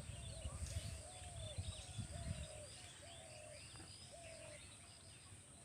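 Outdoor birdsong: a bird gives a series of short, low, arched hooting notes, one or two a second, over many small birds chirping, with a low rumble in the first couple of seconds.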